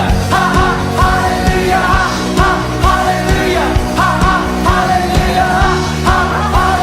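Background music: a song with a sung vocal line over a steady drum beat and bass.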